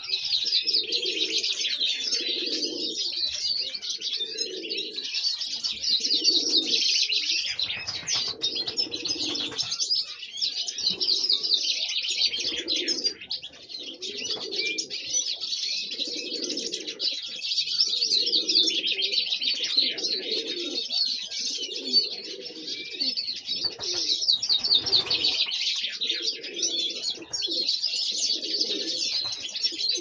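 Aviary songbirds, a chaffinch among them, chirping and singing in a dense, almost unbroken high chorus. Under it, a low note repeats about once a second.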